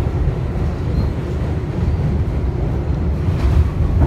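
Kawasaki-built R62A subway train running, heard from inside the car as a steady low rumble, with a few faint wheel clicks near the end.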